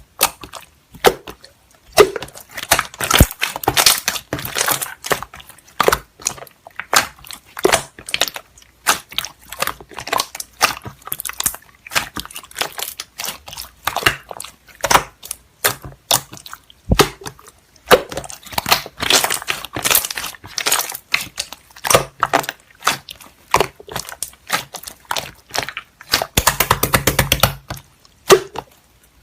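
Slime being squeezed and pressed by hand, giving an irregular run of crackling, popping clicks, with a low rapid buzzing pulse for about two seconds near the end.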